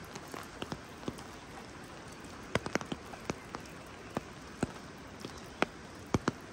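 Steady rain, with irregular sharp drops landing close by, the loudest a few seconds in and near the end.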